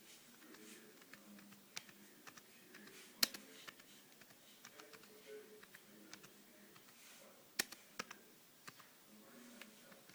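Keys pressed one at a time on an iWork10 tablet's keyboard: faint, irregular clicks with a few sharper taps about three, seven and a half and eight seconds in.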